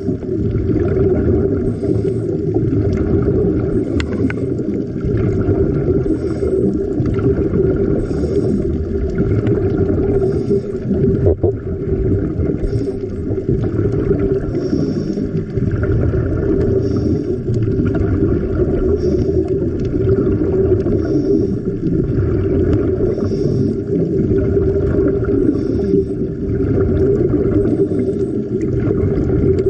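Underwater ambience picked up through a waterproof camera housing: a steady, loud low rumble of water noise, with a faint hiss recurring every second or two.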